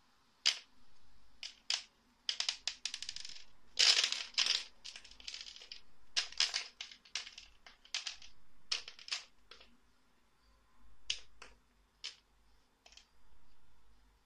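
Clear acrylic plates of a 100-hole manual capsule filler clacking against each other, with loose two-piece capsules rattling in the holes and clattering onto a wooden floor: a run of sharp clicks and short clatters, densest in the first half and thinning out toward the end.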